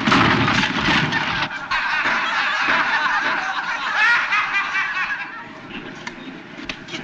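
A slapstick scramble of men's wordless yelps, squeals and laughter-like cries over scuffling and clatter. It is loud for about the first five seconds, then dies down.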